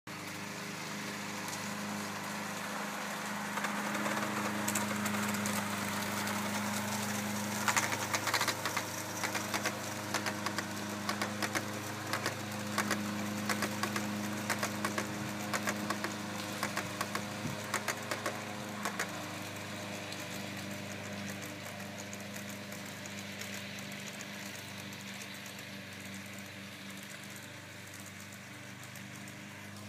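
Garden-railway model of the LNER A3 Flying Scotsman running with its coaches on elevated track: a steady low hum from the train, with a run of sharp clicks, like wheels over rail joints, through the middle as the coaches pass close by, fading a little near the end.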